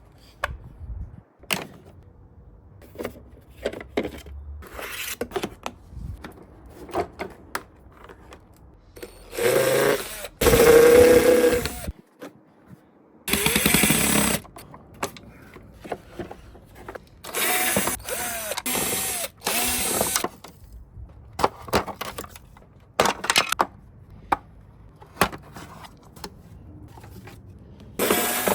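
Power drill/driver running in short bursts of a second or two, its motor whine dipping and recovering, several times over. In between are scattered clicks and knocks of parts being handled.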